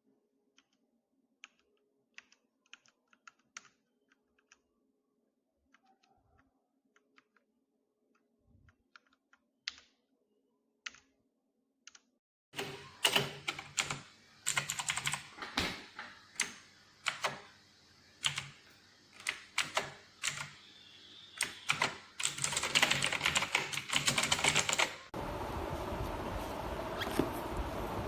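Mechanical keyboard being typed on: a few faint, scattered key clicks at first, then from about halfway loud, fast runs of key clacks. Near the end a steady rushing noise takes over.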